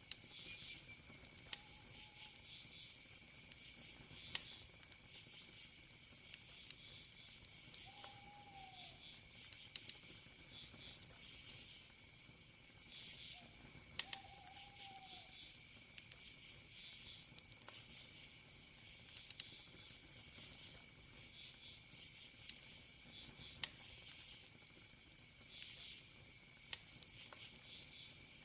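Campfire crackling with scattered sharp pops, over crickets chirping in pulses and a steady high insect trill. A few short falling calls from another animal sound in the first half, about six seconds apart.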